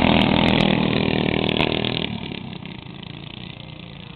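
Go-kart's small engine running loud and close. About two seconds in the sound falls away abruptly, leaving a much fainter engine sound.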